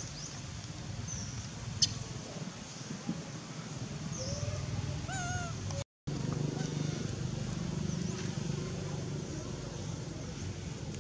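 Outdoor ambience with scattered high bird chirps, a sharp click about two seconds in and a short wavering call a little past four seconds. The sound cuts out for an instant about six seconds in, and after that a steady low murmur fills the background.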